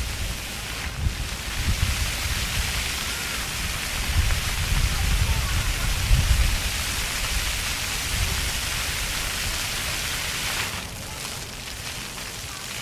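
Water jets of a ground-level splash-pad fountain spraying and splattering onto the paving in a steady rain-like hiss, with a low rumble beneath. The spray drops off noticeably near the end.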